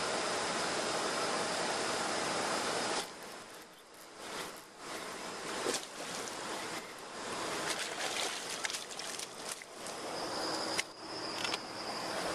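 A hooked bass splashing and thrashing at the surface as it is reeled to the bank, giving irregular splashes and clicks. A steady rushing noise at the start cuts off suddenly about three seconds in, and returns near the end with a thin, high, steady buzz.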